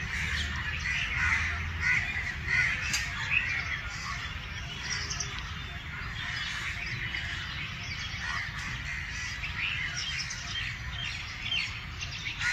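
Birds chirping and calling: a dense chatter of short, high calls, busiest in the first few seconds.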